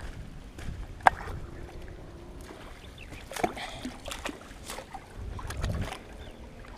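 Water splashing and dripping as a wet cast net is hauled up and gathered by hand by someone wading in a pond, with irregular small splashes, a sharp click about a second in and a low wind rumble on the microphone.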